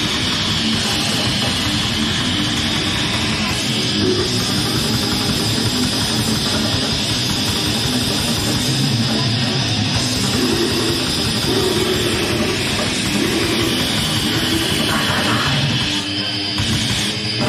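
Death metal band playing live: heavily distorted electric guitars and bass over a drum kit, dense and continuous.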